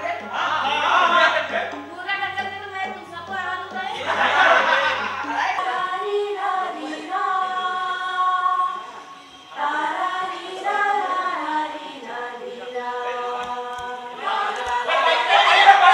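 A group of voices singing together without instruments, a chant-like song with long held notes in the middle. The voices get louder and busier near the end.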